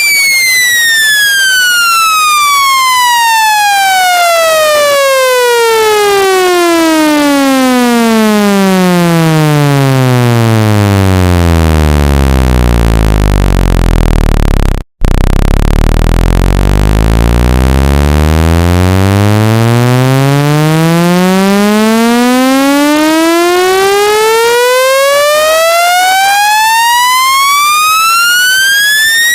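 Synthesized test tone with many overtones sweeping steadily down in pitch from a high whine to a deep low buzz, breaking off for an instant about halfway, then sweeping steadily back up. It is a speaker-cleaning tone, the low end meant to shake water and dust out of a phone speaker.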